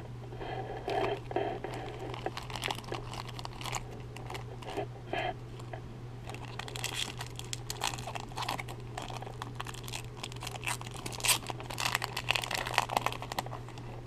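Foil wrapper of a baseball card pack crinkling and tearing as it is opened, with cards rustling in the hands; the crackling grows denser and louder in the second half. A steady low hum runs underneath.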